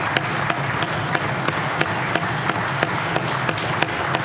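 Members of the legislative chamber applauding: many hands clapping in a steady, dense patter.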